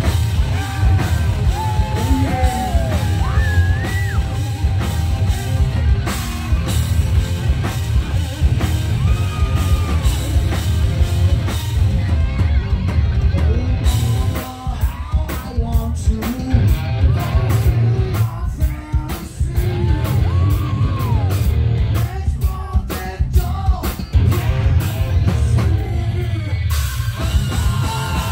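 A heavy metal band playing live: distorted electric guitars, bass and a drum kit, with a singer's vocals over them. The sound is loud and bass-heavy throughout.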